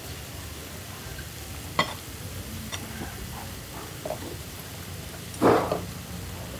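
Food sizzling on a hot tabletop griddle, with sharp clicks of chopsticks against the griddle and bowls at about two and three seconds in. A brief, louder noise comes about five and a half seconds in.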